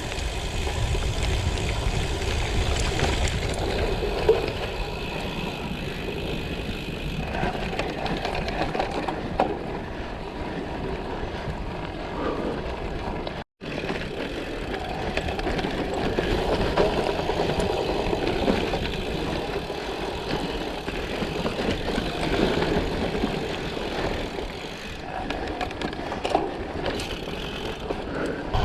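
2021 Specialized Diverge Comp Carbon gravel bike rolling over a gravel road: steady tyre crunch and rattle with low wind rumble on the microphone, and a few sharp ticks. The sound cuts out completely for an instant about halfway through.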